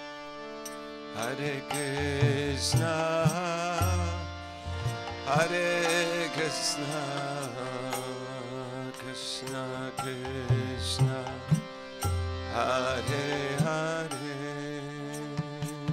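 Kirtan music: a lead voice sings long, wavering phrases over a steady drone, with low hand-drum strokes and lighter percussion.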